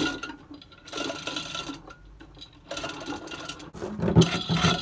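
A chain hoist rattling and clicking as its chain is worked to shift a suspended electric boat motor. Near the end a steady low hum sets in, with a sharp knock.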